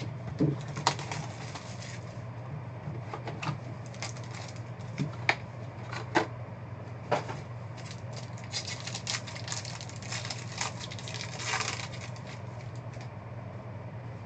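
Hands opening a Topps Tier One trading-card hobby box: scattered clicks and taps of cardboard and cards being handled, with a stretch of crinkling from the foil pack wrapper about nine to twelve seconds in. A steady low hum sits underneath.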